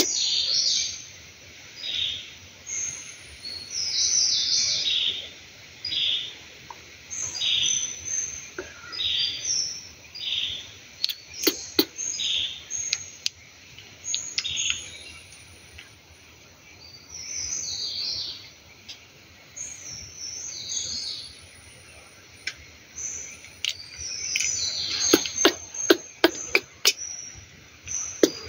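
Baby monkey giving bouts of short, high-pitched chirping squeaks, one or two a second, with pauses between bouts. A run of sharp clicks comes near the end.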